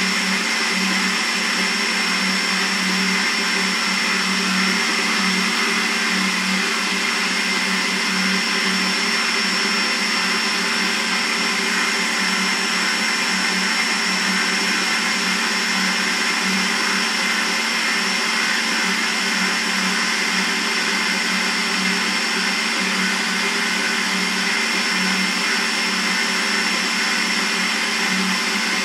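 Kogan stand mixer's motor running steadily at one speed, beating butter and sugar in its stainless steel bowl: a constant low hum with a thin high whine over it.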